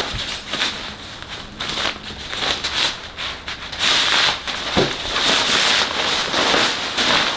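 Crinkly synthetic fabric of a paramotor cover rustling as it is pulled out, unfolded and shaken, with many small crackles, louder in the second half.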